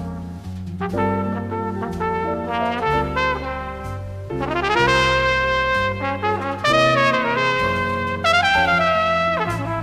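Flugelhorn playing a slow jazz ballad melody, with held notes and a rising run about halfway through, over the big band's low accompaniment.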